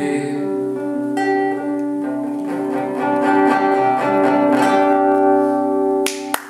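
Acoustic guitar played alone, plucked chords ringing out as the song's closing bars, with a chord change about a second in and another a little later. Applause starts just before the end.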